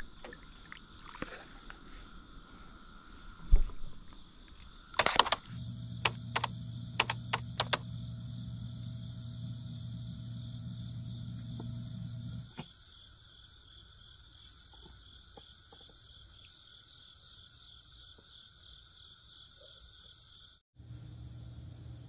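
Steady high-pitched pulsing chorus of calling frogs and insects at the waterside. A handful of sharp clicks come about five to eight seconds in, over a low steady hum that stops suddenly about halfway through and returns near the end.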